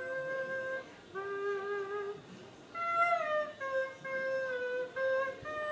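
A slow hymn tune carried by a single melodic line in held notes of about half a second to a second each, with small pitch glides between some of them and no accompaniment.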